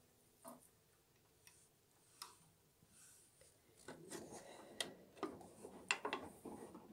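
Faint small clicks and rubbing from handling a vintage Singer sewing machine while threading it, as thread is drawn through the needle area. The clicks are scattered at first and come thick and fast from about four seconds in.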